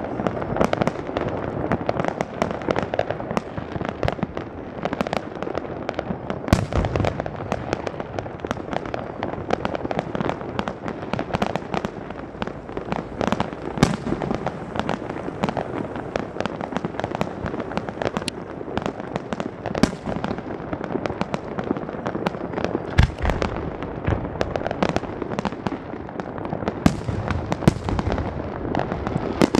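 Fireworks going off without a break: a dense crackle of many small reports, with louder booms now and then, the heaviest about seven seconds in and again about twenty-three seconds in.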